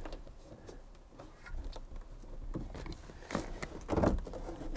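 Hands working a cable up through the roof headliner behind a lowered plastic overhead console: light rustling with scattered small clicks and knocks of plastic trim, a few more of them near the end.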